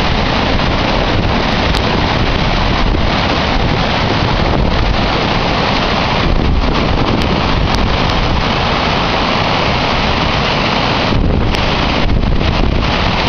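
Water overflowing the Claerwen dam's spillway and cascading down the dam face in a loud, steady rush.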